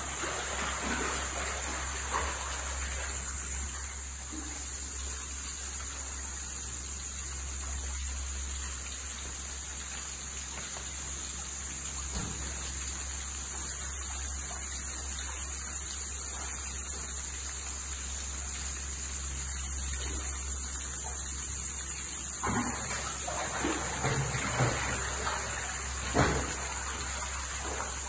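Steady rush of water in a fish-fry tank, with a few short sharp sounds in the last several seconds.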